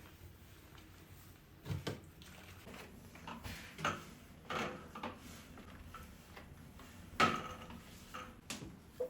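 A few light knocks and clicks of household objects being handled and set down, the loudest about seven seconds in.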